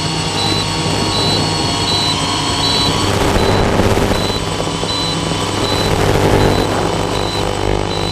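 Multirotor octocopter's eight electric motors and propellers running in flight, a steady many-toned hum that swells a little mid-way as it climbs and speeds up. A faint high pip repeats about every two-thirds of a second.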